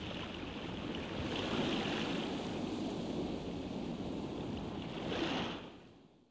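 Rough sea and wind, a steady rushing noise that fades out near the end.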